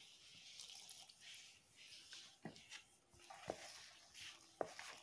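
Faint squishing and rustling of fingers mixing crumbly gulab jamun mix with milk in a bowl, with a few light ticks from about halfway through.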